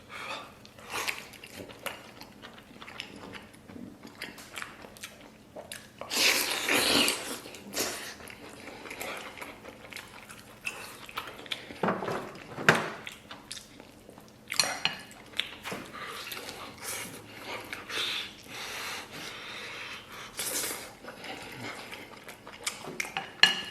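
Close-up eating sounds: a person biting and chewing soy-braised beef rib meat off the bone, with wet chewing, smacking and a few clinks of dishes. The noisiest stretches come about six seconds in and again near twenty seconds.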